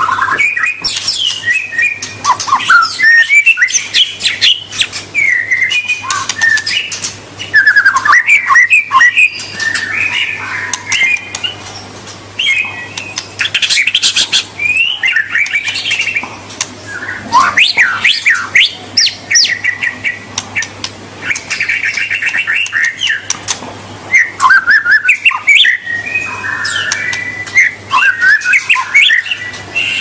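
White-rumped shama (murai batu) singing a long, varied song of clear whistles, quick sweeping notes and rapid trills, in phrases separated by short pauses.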